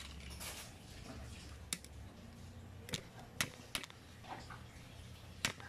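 Five sharp clicks and taps of hard parts or tools being handled, spread out and irregular. A low hum fades out about two seconds in.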